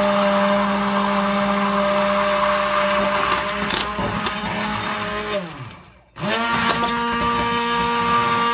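Immersion (stick) blender motor running steadily in a bowl of egg and oil, whipping it into mayonnaise. A little over five seconds in it winds down and stops for a moment, then starts again with a quick rise in pitch and runs on.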